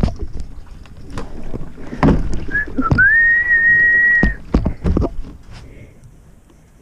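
A high whistled note: two short chirps, then one note that glides up and is held for about a second and a half. Knocks and rubbing from the camera being handled come before and after it.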